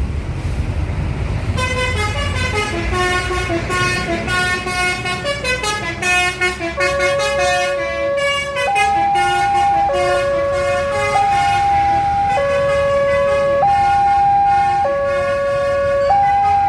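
A two-tone warning signal alternating between a high and a low note, swapping about every second, after a run of quickly changing horn-like tones over low traffic rumble.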